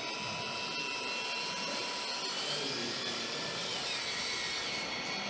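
Whine of the small 12 V electric gear motors of a 3D-printed RC excavator, gliding up and down in pitch as they drive the arm and bucket actuators while it digs.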